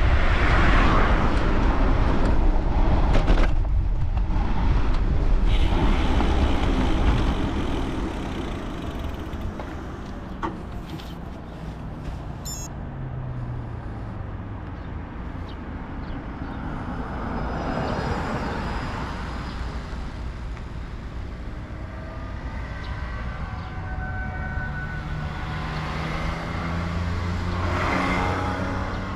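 Motor traffic passing a moving bicycle on a highway. A loud low rumble eases after about seven seconds. Vehicles then go by with engine hum swelling and fading, once around the middle and again near the end.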